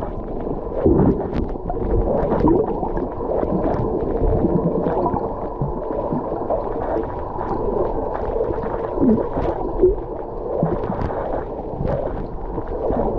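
Muffled underwater noise of water gurgling and sloshing, with faint clicks scattered through it, heard through a camera held underwater.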